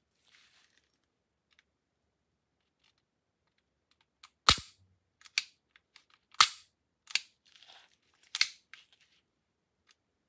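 Sharp metallic clicks of a VIS 100 M1 pistol's action being worked by hand. After a few seconds of faint handling rustle, five loud clicks come about a second apart, some with a dull knock under them, and smaller clicks fall between them.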